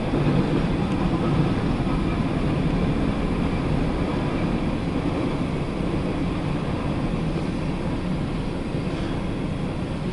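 Steady low rumble of an empty CSX coal train's hopper cars rolling past on the rails.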